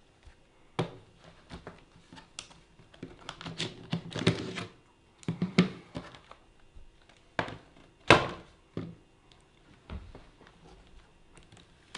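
Irregular plastic clicks and knocks from handling an Acer Aspire One netbook's case, with the loudest sharp knock about eight seconds in.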